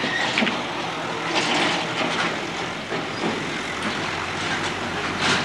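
Steady outdoor street background noise, with a few short knocks standing out from it.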